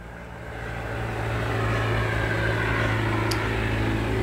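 Low, steady motor hum that swells over the first two seconds and then holds, with a faint small click about three seconds in.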